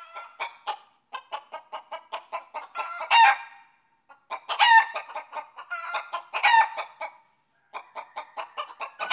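A hen clucking in quick runs of about four or five clucks a second, broken by three loud, drawn-out cackles.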